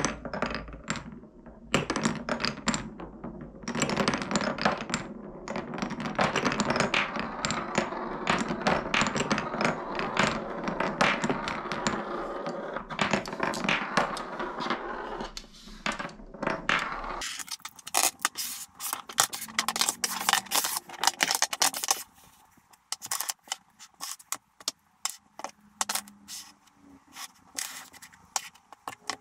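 Glass marbles rolling and clattering through the grooves and tunnels of a wooden Cuboro marble run: a continuous rolling rumble full of small clicks. About seventeen seconds in this gives way to scattered separate knocks and clacks of wooden Cuboro blocks being picked up and set down on a wooden table.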